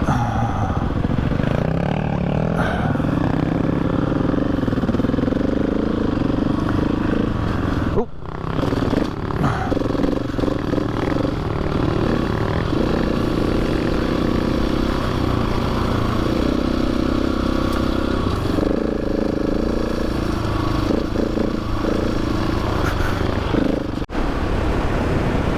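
Adventure motorcycle engine running under way on a dirt forest track, its note shifting up and down with the throttle. The sound drops out briefly twice, about 8 and 24 seconds in.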